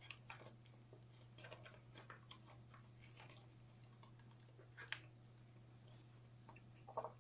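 Faint chewing and mouth clicks of a person eating: scattered small ticks, a slightly louder one about five seconds in and another near the end, over a steady low hum.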